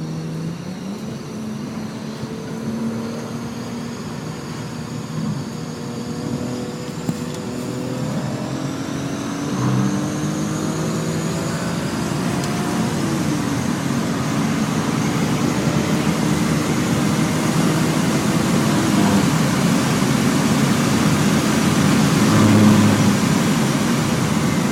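E36 BMW M3's straight-six engine running at speed, heard inside the cabin. Its pitch climbs and shifts a few times, over tyre and wind noise that grows louder.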